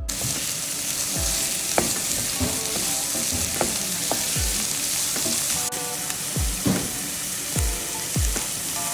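Food sizzling as it fries in a hot pan, a dense steady hiss that starts suddenly, with the beat of background music underneath.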